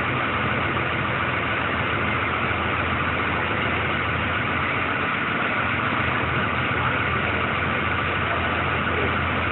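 Boat engine running steadily, heard from on board.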